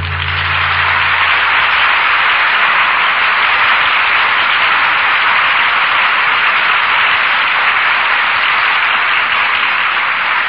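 Studio audience applauding steadily at the end of a radio-play act, on an old broadcast recording with little top end. The last held chord of the orchestra's bridge music fades out in the first second.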